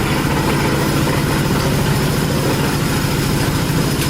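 An engine running steadily at a constant speed, with a low hum and fast, even pulsing.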